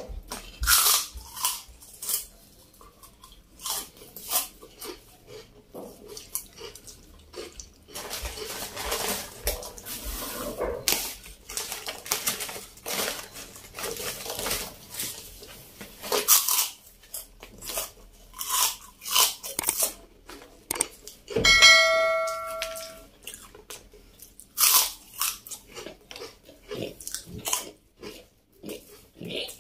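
Close-up crunching and chewing of crisp fried wheel chips, bite after bite, with the plastic snack bag rustling as chips are poured out. A short ringing tone sounds about two-thirds of the way through.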